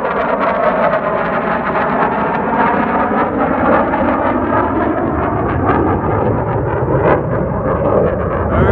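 F/A-18 Super Hornet fighter jet flying past overhead: loud, steady jet noise whose whooshing tone slowly sweeps down and then back up as it passes.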